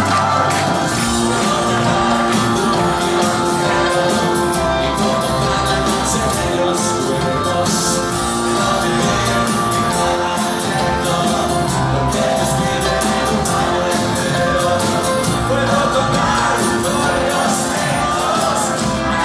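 Live pop-rock band playing loudly, with drums, electric and acoustic guitars and keyboards under sung vocals, recorded from within the concert crowd.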